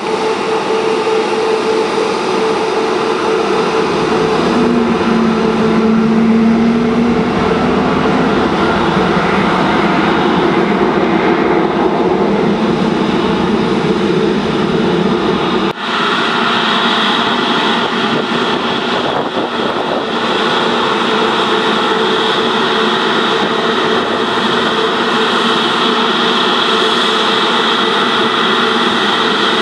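Jet engines of several taxiing airliners at low thrust: a steady whine over a rumble. It breaks off abruptly about halfway through and resumes with a stronger high whine.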